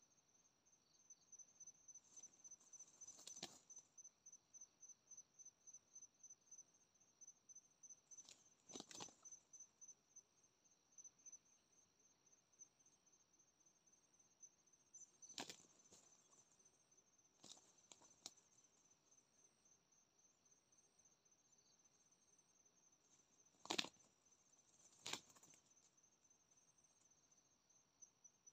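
Faint insect chirping in fast, even pulses, high-pitched. Sharp clicks or snaps break in about seven times, the two loudest near the end.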